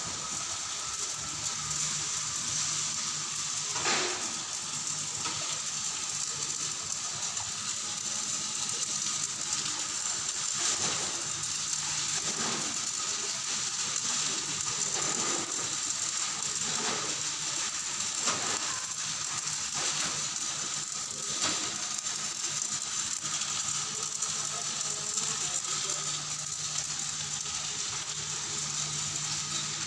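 Electric arc welding: the arc crackles and hisses steadily as the weld is run, with a low steady hum underneath. It stops right at the end.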